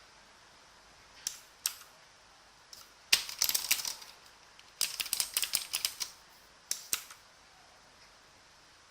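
Keys of a mechanical keyboard with clicky blue Outemu switches being pressed: two single clicks, then two quick runs of rapid keystrokes about a second each, then two more single clicks near the end.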